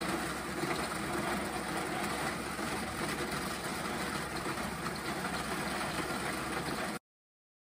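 Tracked road-trenching machine cutting a narrow trench in asphalt: its engine running steadily under the grinding of the cutter wheel in the road surface. The sound stops abruptly near the end.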